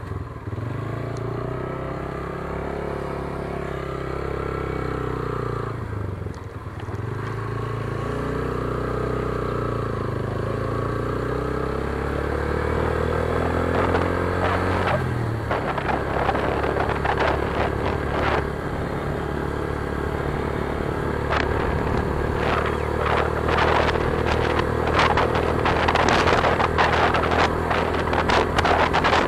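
Motorcycle engine pulling away and accelerating through the gears, its pitch climbing and dropping back at shifts about six and fifteen seconds in, then running at a steady cruise. Wind buffeting on the microphone grows louder as speed builds.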